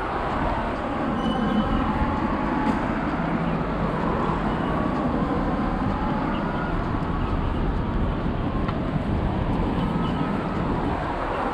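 Steady rumble of vehicles going by, with a few faint short tones above it.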